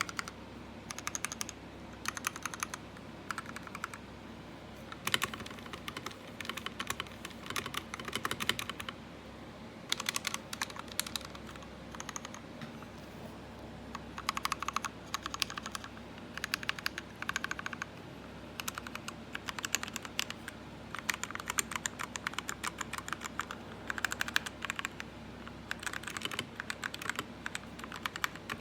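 Typing on a tenkeyless mechanical keyboard with lubed Gateron Red linear switches: fast runs of key presses in bursts of a second or two, broken by short pauses.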